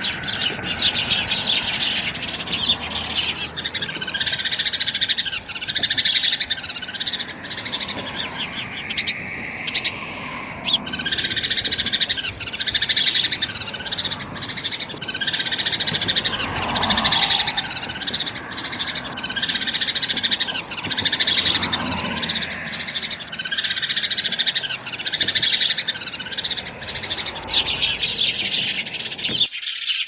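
A dense chorus of birds chirping and tweeting, in a pattern that repeats every second or two.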